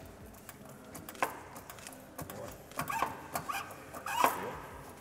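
Factory floor ambience: scattered mechanical clicks and knocks, the sharpest about four seconds in, with faint voices in the background.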